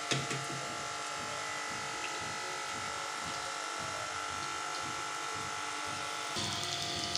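Battered potato tikkis sizzling steadily in hot frying oil in a pan, with a spatula clicking against the pan just at the start.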